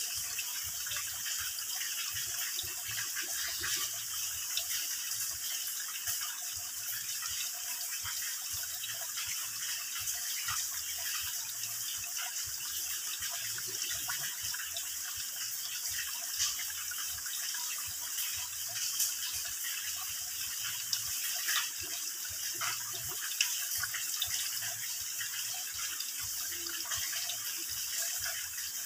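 Water dripping and trickling from a mossy rock overhang into a shallow pool: a steady gurgling hiss dotted with many small, irregular drip ticks.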